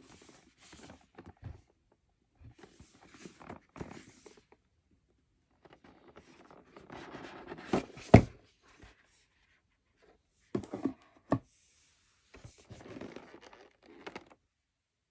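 Cardboard toy box and its plastic tray being handled: bursts of cardboard rustling and scraping, with a sharp knock about eight seconds in and two more short knocks a few seconds later.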